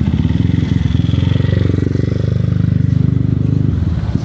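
Motor scooter engine passing close by, its pitch rising as it pulls away and then fading out shortly before the end.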